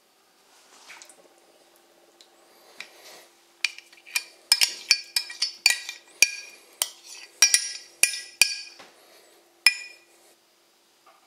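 A metal spoon clinking sharply against a glass measuring jug and a stainless steel bowl as thick Greek yoghurt is scraped out. There is soft handling at first, then a quick run of about fifteen ringing clinks over some six seconds.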